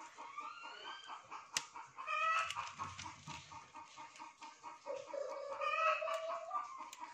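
Chickens clucking and calling, with two louder calls about two and six seconds in, and a couple of sharp clicks.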